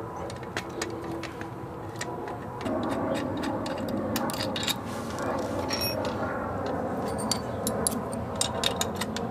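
Small metal clicks and ticks of an Allen key and spanner turning a bolt loose on a steel bike-seat mounting bracket, with the freed bolt, washer and nut clinking in the fingers. A steady rushing noise runs underneath from about three seconds in.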